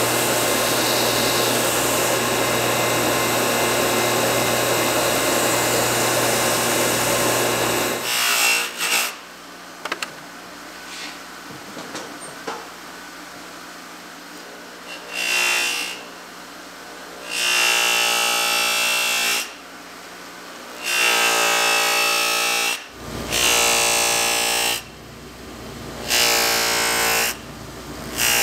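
A belt grinder runs steadily with a knife blade held to the belt, a loud even grinding over motor hum that stops abruptly about eight seconds in. Then a knife is buffed on a cloth buffing wheel on a bench grinder in a series of short passes, each one or two seconds long, with a pitched whir each time the blade meets the wheel.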